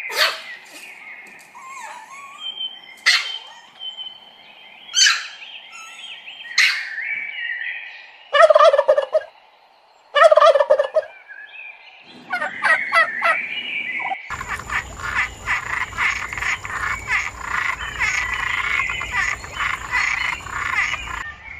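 Domestic fowl calling, gobbling like turkeys: a run of separate short calls, then about two-thirds of the way in a dense chorus of many birds calling at once.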